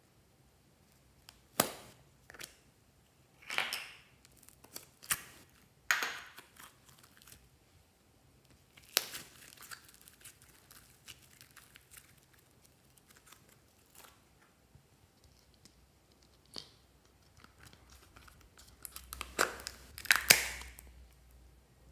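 Plastic containers being handled and opened by hand: sharp, separate snaps and clicks of plastic lids and shells, with the sticky pulling of slime squeezed out into a tray. A denser run of louder snaps and rustles comes near the end as a small plastic tub is opened.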